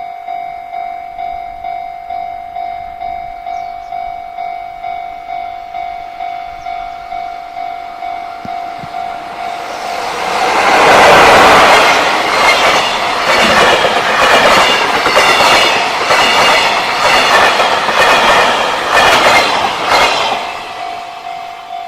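A Japanese level-crossing warning bell rings in an even, repeating pulse, nearly two strikes a second. About ten seconds in, a freight train hauled by an electric locomotive passes loudly at speed for about ten seconds, its wagons clattering rhythmically over the rail joints and drowning out the bell. The bell is heard again near the end.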